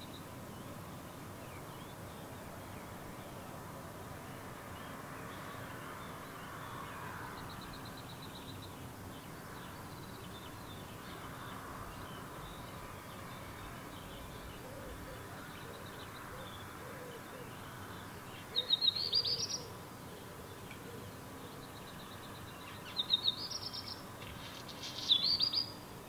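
A songbird of the Old World flycatcher family singing three short, high phrases: one about eighteen seconds in and two near the end. Fainter high trills come now and then over a steady background hiss.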